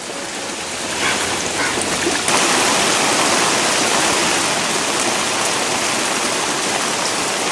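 Heavy monsoon rain pouring down in a dense, even hiss. It swells in over the first couple of seconds, then holds steady.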